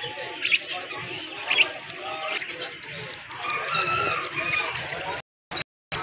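Caged chickens clucking, with a rooster crowing in a long drawn call about halfway through, over a background of voices. Near the end the sound breaks up into short choppy fragments with silent gaps.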